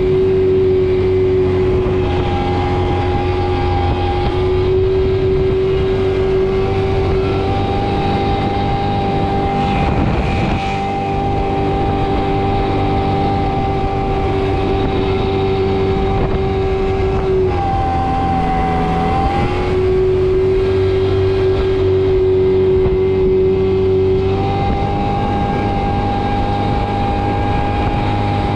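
Motorbike engine running at a steady speed while riding, with a constant whine over a low hum; about two-thirds of the way through the revs drop briefly and then climb back.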